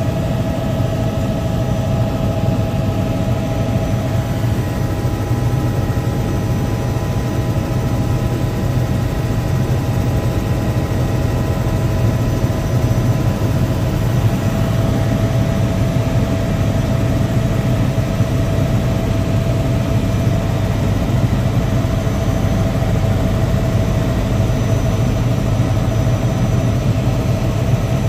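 Helicopter heard from inside the cabin in steady flight: a constant low drone with a few steady whining tones above it, unchanging throughout.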